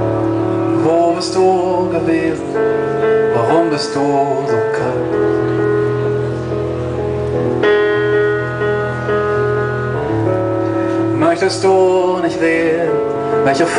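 Live band music: held keyboard chords that change every few seconds, with a man singing short phrases over them.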